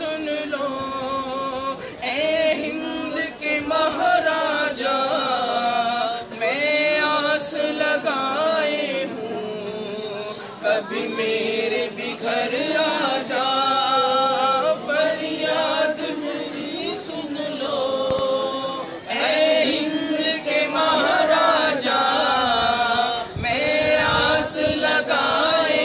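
A group of men chanting an Urdu manqabat (a devotional hymn to the Sufi saint Gareeb Nawaz) together, unaccompanied, in long sung phrases with short pauses between lines.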